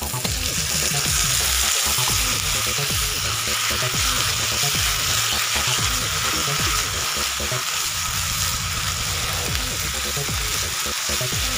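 Canned corned beef, sliced onions and chopped garlic sizzling in hot oil in a wok, with stirring from a silicone spatula. The loud, steady sizzle comes on abruptly right at the start as the corned beef drops into the oil.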